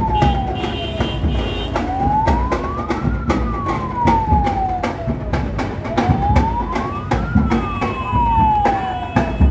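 A siren wailing in slow cycles, each climbing in about a second and then sliding down over two to three seconds, about two cycles in all. It sounds over street traffic rumble and frequent sharp knocks.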